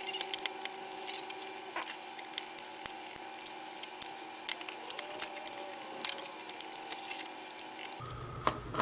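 Prying and handling a small plastic power bank case: irregular sharp clicks and cracks, over a faint steady hum.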